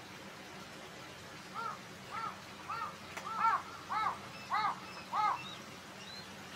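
A crow cawing about eight times in a steady series, one short caw roughly every half second.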